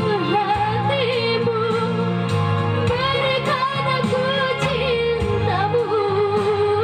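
Young female voice singing a slow pop song over a backing track, holding long notes with a wavering vibrato.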